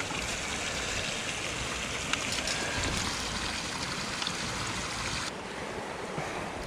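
A rocky creek running steadily, with some wind noise on the microphone and a few faint clicks.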